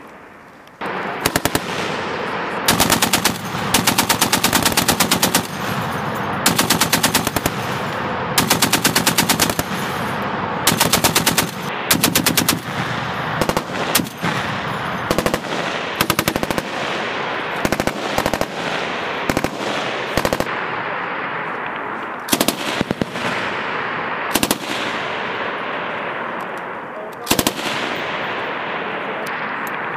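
Belt-fed machine guns, among them the M249 light machine gun, firing about a dozen short bursts of automatic fire. The report lingers between bursts.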